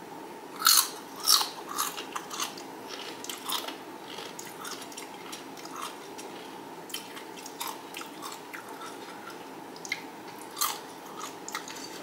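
Crunchy XXtra Flamin Hot Doritos tortilla chips bitten and chewed close to the microphone: two sharp, loud crunches about a second in, then softer chewing crunches, with a few more crunches later on.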